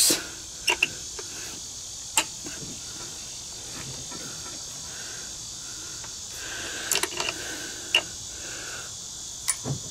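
Sharp metal clicks as locking pliers (vise grips) work a stuck head bolt loose from an outboard's aluminum cylinder head: a few separate clicks, with a cluster of them near the end. A steady insect chorus runs underneath.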